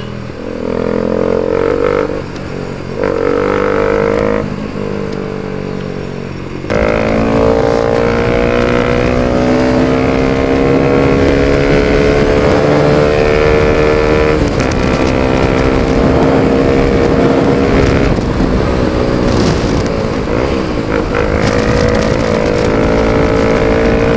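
Bajaj Pulsar RS200's single-cylinder engine through a full-system Akrapovic exhaust with no dB killer. It starts on light, on-off throttle, then opens up hard about seven seconds in and pulls with the pitch climbing steadily, dropping back at each upshift and climbing again.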